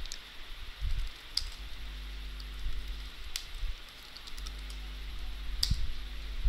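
Computer keyboard keystrokes, a few scattered taps as a short shell command is typed, over a low steady electrical hum.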